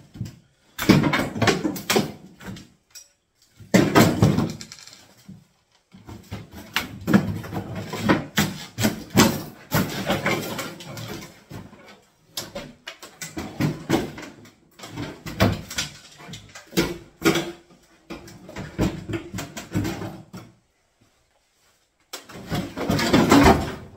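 Kitchen demolition clatter: repeated knocks, bangs and scraping as old kitchen units and debris are handled and broken up, with a brief pause and then a loud burst of clatter near the end.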